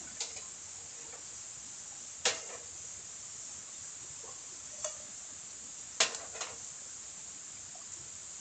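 Camp cookware and gear being handled, giving a few sharp clicks and knocks, the loudest about two seconds in and about six seconds in, over a steady hiss of insects.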